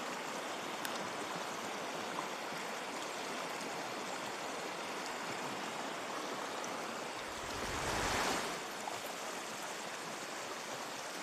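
Shallow mountain river rushing over stones, a steady even rush of water. About eight seconds in it swells briefly louder, with a low rumble.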